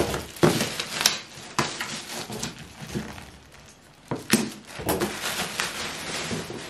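Clear plastic wrapping crinkling and rustling as it is handled and torn off a box, with snips of scissors cutting through it. Irregular sharp crackles, with a brief lull partway through.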